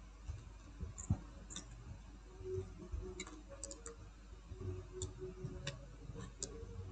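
Faint, scattered light clicks and ticks, about eight of them at uneven intervals, from small hand tools and parts being handled at an electronics repair bench, over a faint low hum.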